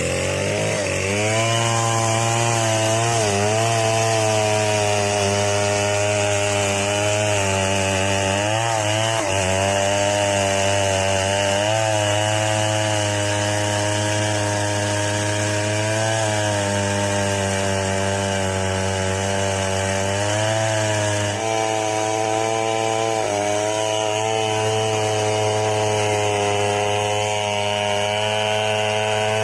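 Chainsaw engine running steadily at high revs, its pitch dipping and wavering briefly a few times.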